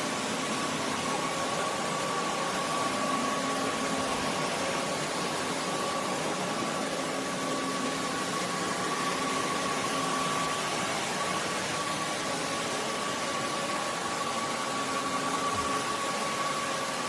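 Roborock F25 LT wet-and-dry vacuum mop running: a steady rush of air with a constant high whine from the motor.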